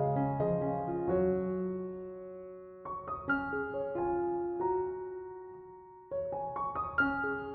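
Soft solo piano background music: slow phrases of single notes and chords that ring and fade, with new phrases starting about three and six seconds in.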